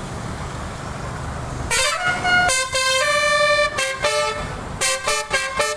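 A truck's Telolet Basuri multi-tone air horn playing a melody. A low engine rumble comes first; after about a second and a half the horn starts with a rising note, then plays a run of stepped notes that turns to quick short toots near the end.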